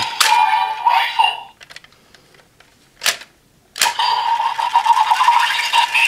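Electronic sound effects played through the small speaker of a DX Magnum Shooter 40X toy gun with the DX Ninja Raise Buckle loaded: a short run of effects, a quiet gap broken by two sharp plastic clicks, then a longer, busier stretch of effects from about four seconds in.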